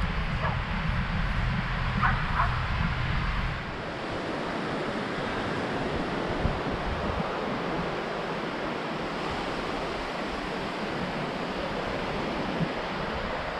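Wind rumbling on the microphone for the first three and a half seconds, then the steady, even wash of surf on a sandy beach.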